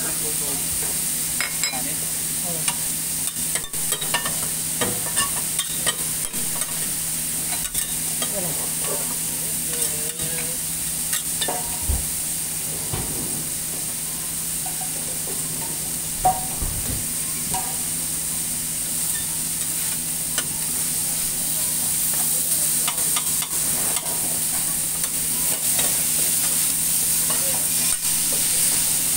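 Beef and shredded cabbage sizzling on a hot steel teppan griddle, a steady hiss, with frequent sharp clicks and scrapes of a metal spatula against the plate. The sizzle grows a little louder after about twenty seconds.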